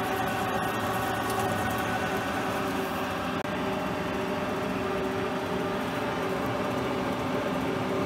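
Schaublin 52 milling machine running, its cutter milling a pocket in a metal part: a steady machine hum with several held tones over a rough cutting noise.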